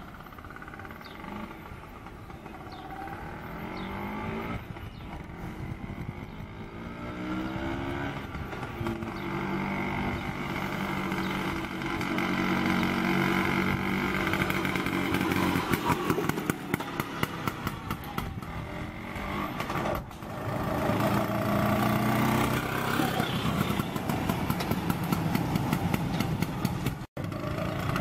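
1965 Vespa VBB's 150 cc two-stroke single-cylinder engine running as the scooter is ridden, growing louder as it comes closer, its pitch rising and falling with throttle and gear changes. There is a brief dropout near the end.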